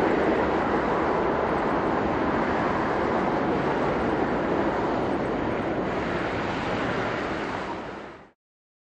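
Airbus A380 with four Rolls-Royce Trent 970 jet engines, a steady rush of engine noise as the airliner rolls out on the runway just after touchdown. The sound fades out and stops shortly before the end.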